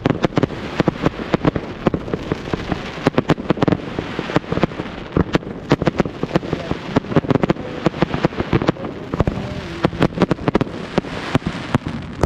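Professional fireworks display going off: a rapid, irregular string of bangs and crackles with no let-up.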